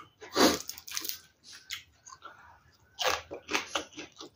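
Mouth sounds of eating rice and fried fish by hand, close to the microphone: chewing, lip smacks and finger-licking. The sounds come in short irregular clicks, loudest about half a second in and again around three seconds in.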